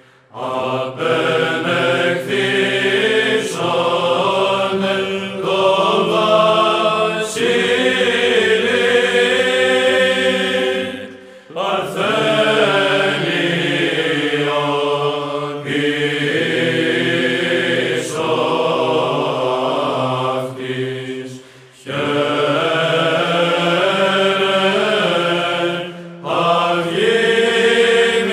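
Serbian Orthodox liturgical chant, sung in long held phrases with a few short breaths between them.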